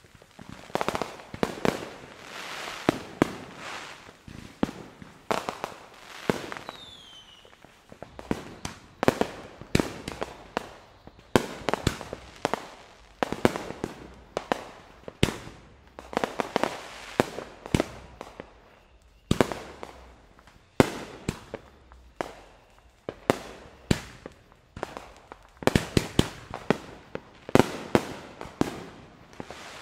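Aerial fireworks going off in a continuous run of sharp bangs and pops, often several in quick succession. A short falling whistle comes about seven seconds in.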